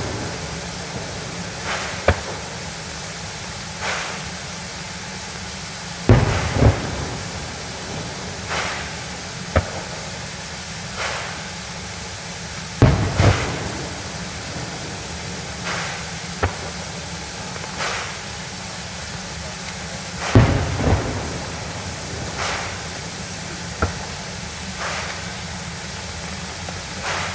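Fireworks shells bursting overhead: a deep boom about every seven seconds, with lighter pops and a few sharp cracks in between, over a steady hiss.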